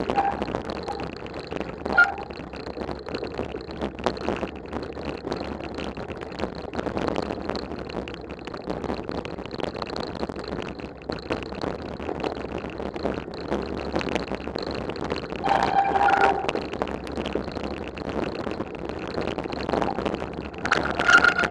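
Mountain bike riding over a snowy forest trail, heard from a camera carried along on the ride: a steady rumble and rattle with many small knocks. Brief higher-pitched sounds stand out about two seconds in, about sixteen seconds in and near the end.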